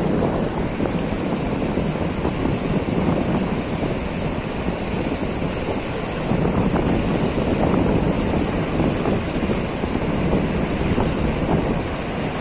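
Fast river current rushing and churning over a weir's concrete apron as a steady noise, with wind buffeting the microphone.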